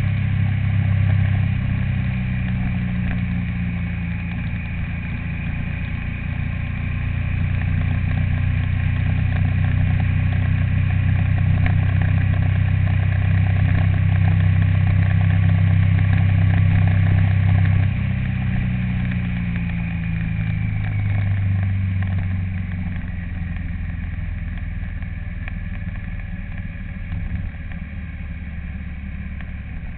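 A vehicle engine running with a steady low hum. Its note changes about eighteen seconds in, and the sound gets quieter toward the end.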